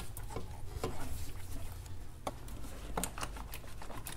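Scattered light clicks and taps, irregular and about ten in all, from hands fitting the intake J-pipe and hoses into place in the engine bay.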